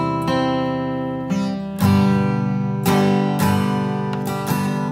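Background music: an acoustic guitar strumming chords, each strum ringing on into the next.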